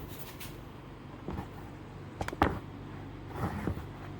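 Old rubber windshield seal being pried up and worked over the sheet-metal cowl with a plastic tool. There is a click a little over a second in, a quick cluster of sharp snaps about two and a half seconds in, then a short squeaky rub of rubber on metal, all over a steady low hum.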